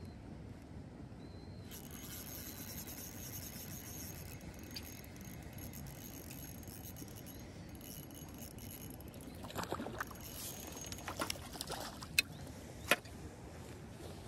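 Fishing reel being wound in steadily from about two seconds in, with a high whirring texture. Several sharp clicks and knocks come near the end.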